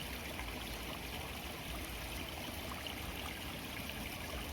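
Steady rush of running water from a small stream or channel, even and unbroken.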